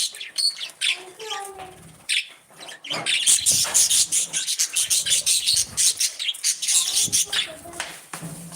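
Budgies chirping and chattering in a flock, with rapid overlapping chirps that get busier and denser about three seconds in.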